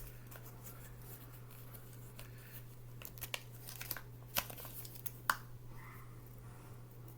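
Faint handling of knife packaging: light crinkling and a few sharp clicks and ticks, about five of them in the middle seconds, over a low steady hum.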